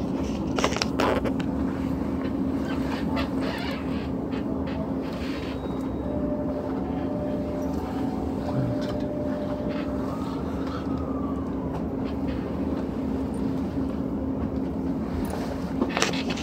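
Steady hum inside a stationary E257 series express train car, with a few faint short tones around the middle and a couple of soft clicks near the start and end.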